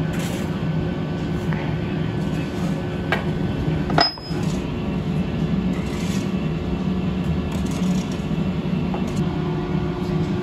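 Moulding sand being shovelled and packed into a steel casting flask, with scraping and a few light clinks, and one sharp metallic clink with a short ring about four seconds in. A steady machine hum runs underneath.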